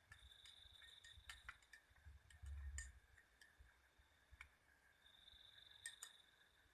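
Near silence: room tone with faint scattered clicks and a faint steady high-pitched whine.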